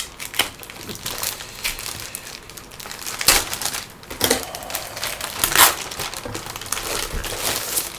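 Plastic packaging around a new laptop crinkling and rustling as it is pulled open by hand, in irregular crackles with louder bursts about three, four and five and a half seconds in.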